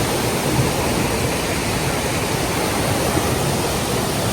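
Waterfall and river water rushing, a steady, unbroken noise of falling water.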